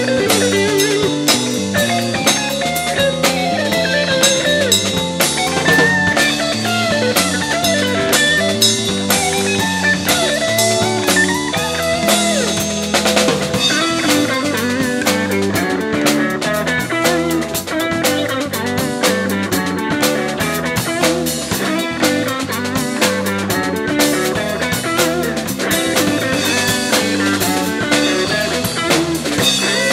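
Live jazz-funk fusion band playing a groove, with drum kit and guitar to the fore.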